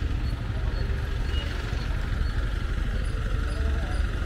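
Wind rumbling on the microphone outdoors: a steady, uneven low rumble with a faint hiss above it.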